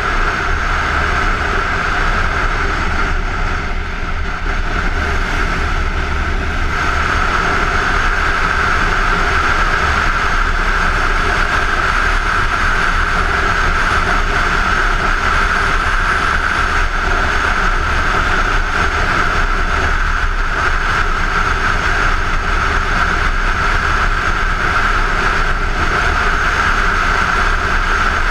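Kawasaki Ninja 250 motorcycle engine running at a steady cruising speed, mixed with heavy wind noise on a helmet-mounted camera. It eases off slightly about three to six seconds in, then runs steady again.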